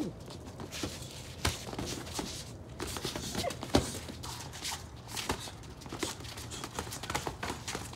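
Boxing gloves landing in an exchange of punches: short, irregular thuds, the sharpest about a second and a half in and just under four seconds in, with feet shuffling in between.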